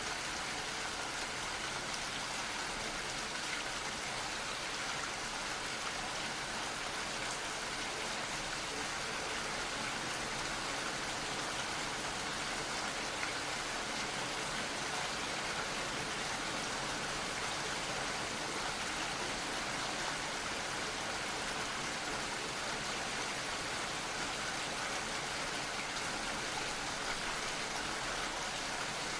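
Light rain falling steadily, a continuous even hiss with faint scattered drop ticks.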